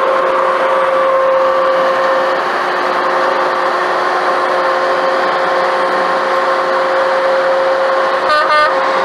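Steady highway road and tyre noise heard from inside a moving car, with a medium-duty box truck running right alongside, a constant hum under the rush. Two short pitched beeps come close together near the end.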